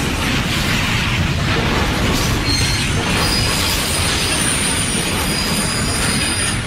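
Freight train rolling past at speed: a steady rumble of wheels on rail, with faint high-pitched wheel squeals from about two and a half seconds in.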